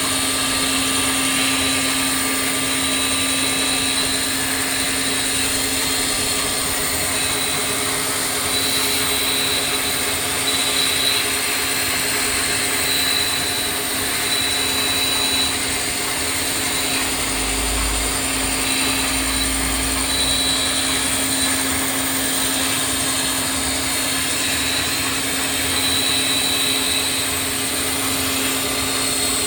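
CNC milling machine running steadily, a constant mechanical hum with a high tone that comes and goes.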